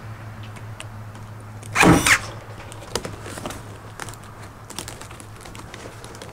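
Corded electric T50 staple gun firing once with a sharp bang about two seconds in, driving a staple through woven lauhala matting into the ceiling, followed by a few lighter clicks and knocks.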